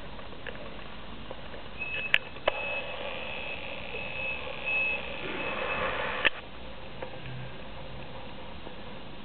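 A high electronic beep sounds in uneven pulses for about four seconds over a steady background hiss, starting with a sharp click about two seconds in and stopping with another click.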